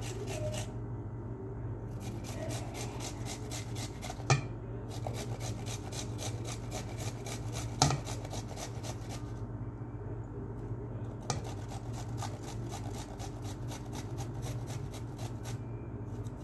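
Rhythmic scraping strokes of a kitchen utensil working food, several a second, in runs broken by short pauses, with two sharp knocks about four and eight seconds in. A steady low hum runs underneath.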